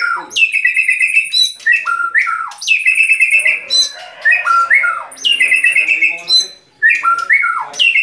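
White-rumped shama (murai batu) singing loudly in repeated phrases. Each phrase is a sharp rising sweep running into a rattling trill, with falling whistled notes between phrases.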